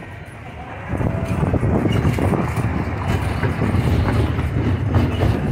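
Low rumbling road and vehicle noise on a city street, stepping up sharply about a second in and staying loud.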